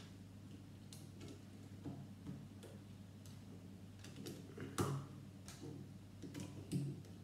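Lego plastic plates clicking and tapping as they are handled and pressed onto a model: a dozen or so light, irregular clicks, the loudest about five seconds in, over a faint steady hum.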